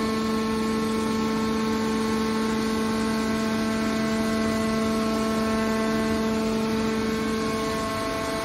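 Hydraulic power unit of a scrap metal baler running, its electric motor and pump giving a steady hum with a stack of overtones while the hydraulic cylinder folds the press lid closed.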